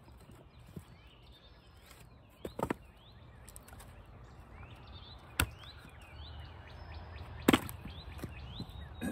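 Three heavy blows of a splitting tool into a knotty round of red maple, spaced a few seconds apart, the last one the loudest. Small birds chirp faintly throughout.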